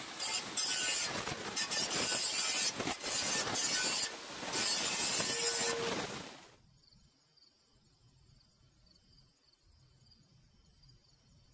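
Harsh, hissing metal-fabrication noise with crackles and clicks, from grinding or welding steel, stopping about six and a half seconds in. Faint crickets chirr in the quiet that follows.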